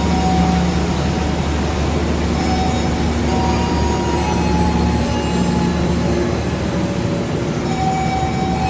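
Diesel-electric locomotive running steadily, a loud, even low hum with fainter higher tones coming and going above it.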